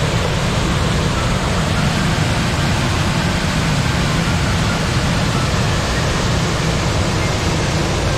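Steady, loud rush of a small waterfall on Dingmans Creek, heard close up, with its weight in the low end.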